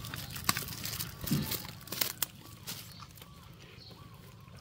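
Macaques eating fried chicken: sharp crunching and clicking bites for the first two seconds or so, then quieter chewing.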